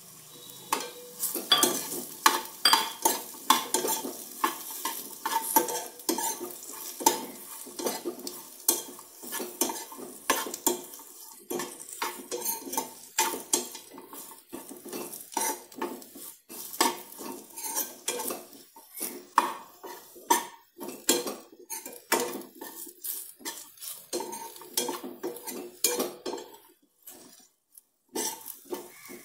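Metal spoon stirring and scraping chopped dates around a frying pan of hot ghee: repeated clinks and scrapes against the pan, over a light sizzle, with a short pause near the end.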